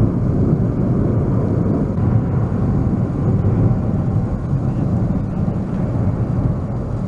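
Erupting Cumbre Vieja volcano: a loud, continuous low rumble.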